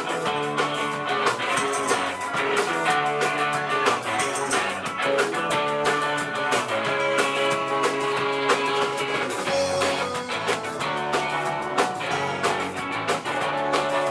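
Live rock band playing: electric guitars strumming over a steady drum beat.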